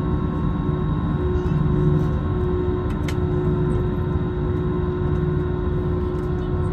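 Airbus A321-200 cabin noise on the ground before takeoff: the jet engines running steadily at low thrust, a low rumble under a steady whine, with one short click about three seconds in.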